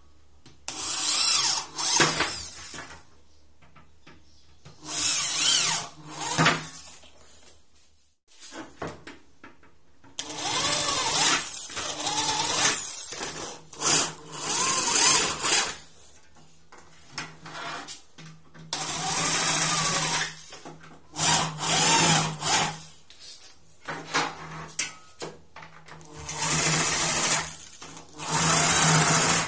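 Electric drill with a twist bit boring holes through aluminium window profiles, in about six separate runs of one to several seconds each with short pauses between them.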